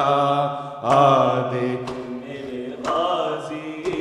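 A man's voice singing an Urdu noha (Muharram lament) in long held notes, with maatam chest-beating striking about once a second in time with the chant.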